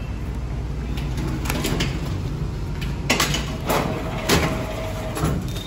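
A large cardboard carton being gripped and shifted by hand: several sharp knocks and scrapes of cardboard over a steady low machine hum.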